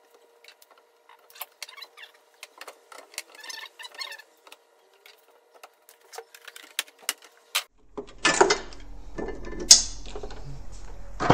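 Scattered light clicks and rattles of bar clamps being fitted and hand tools being handled on a wooden workbench. From about eight seconds in come louder knocks and clatter of tools being moved about, with one sharp knock near the end.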